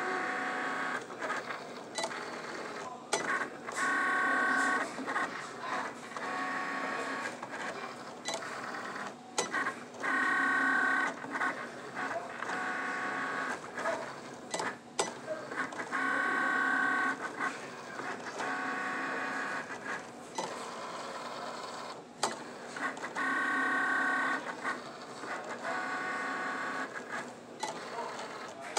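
Cricut Explore Air 2 cutting machine drawing with a fine-point pen: its motors whine in repeated spurts of a second or two as the carriage and mat move, with short clicks between moves.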